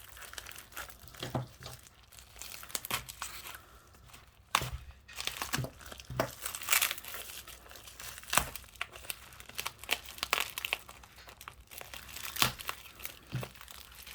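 Postal packaging being torn open by hand, crinkling and tearing with irregular sharp crackles and rustles.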